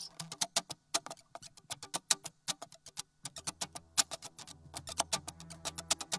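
Music: a fast, uneven run of sharp percussive clicks over low held notes, with a deep bass note coming in about three seconds in.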